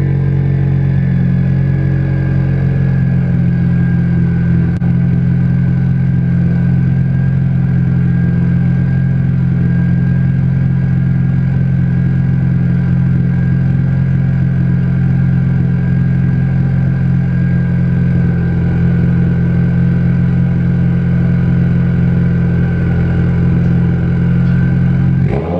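2015 Subaru WRX's FA20 turbocharged flat-four idling steadily, heard at the tailpipe through a catless J-pipe and a Remark single-wall axle-back exhaust.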